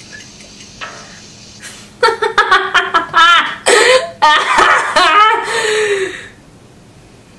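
A woman laughing in a run of short, breathy bursts, starting about two seconds in and lasting about four seconds.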